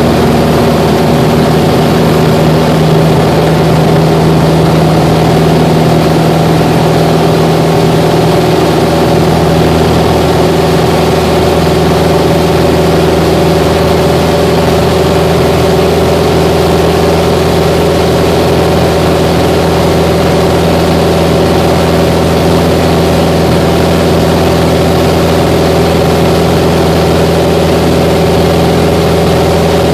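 Grumman American Yankee's four-cylinder Lycoming engine and propeller at full takeoff power, heard inside the cabin: a loud, steady drone through the takeoff roll and climb-out.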